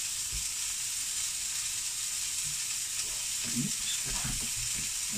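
Duck breast sizzling steadily in a frying pan: an even frying hiss.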